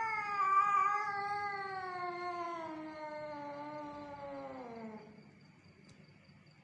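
An angry cat's yowl in a standoff with another cat: one long, drawn-out call, its pitch sliding slowly downward until it dies away about five seconds in.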